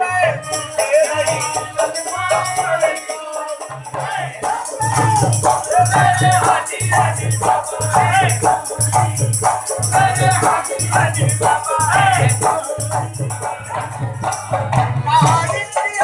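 Live qawwali: a man singing to harmonium accompaniment over a steady beat of a little more than one stroke a second.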